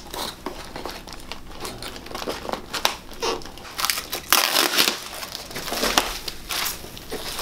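A thin wooden shipping box being pried and pulled apart by hand, its panels and tape coming loose with a string of sharp cracks, creaks and rustling from the packing. The loudest burst comes about four to five seconds in, with another sharp crack near six seconds.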